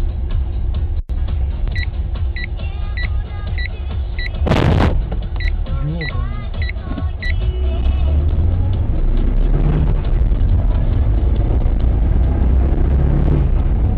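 A car driving, heard from a dashcam inside the cabin: a steady low rumble of engine and road noise. From about two to seven seconds in, a short high beep repeats about every 0.6 s, and a brief loud burst of noise comes near the middle.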